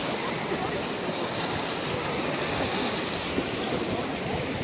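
Black Sea surf washing onto a sandy beach: a steady wash of noise without distinct breaks.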